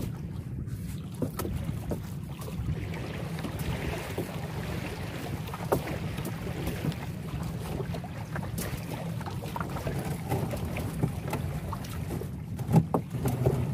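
Small boat's long-tail outboard motor running steadily as the boat cruises, with water splashing against the hull and wind on the microphone.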